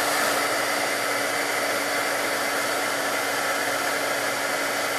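Handheld embossing heat tool running steadily: an even rush of blown air with a steady motor hum, melting glitter embossing powder on a stamped sentiment.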